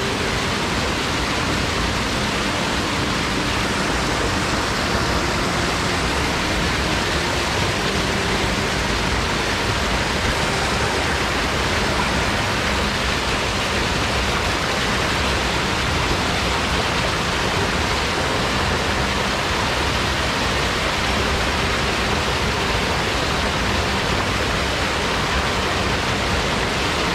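Rushing water of a mountain headwater stream, a loud, steady wash of noise without a break.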